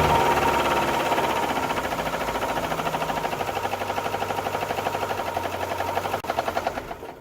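1995 Ford Ranger's 2.3-litre Lima four-cylinder engine running on its new timing belt, with a rapid, even clicking pulse that the owner puts down to the timing belt back cover knocking against something. The engine is switched off near the end and dies away.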